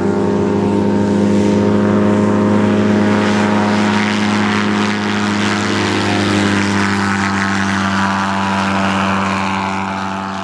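Ultralight aircraft's engine and pusher propeller running at takeoff power as the plane rolls and lifts off: a steady drone that rises slightly in pitch at first and fades near the end.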